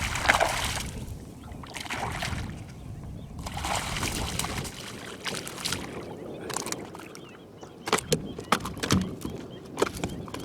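Water splashing and sloshing as a hooked snakehead is brought to the boat, in a few surges, then several sharp knocks and clicks near the end as it is handled.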